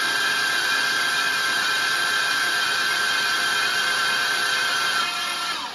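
Electric drill spinning the oil pump of a Mercruiser 5.0 MPI V8 through an oil-priming tool, with the starter turning the engine over: a loud, steady whine that winds down and stops just before the end. The pump is holding 60 psi of oil pressure while the engine's oil system is primed.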